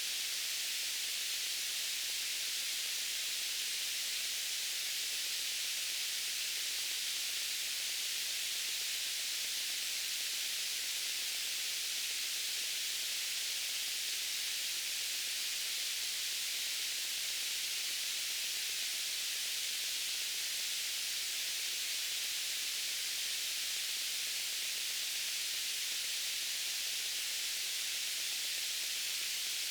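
Steady white-noise hiss, strongest in the treble, unchanging throughout, with a faint low hum beneath it.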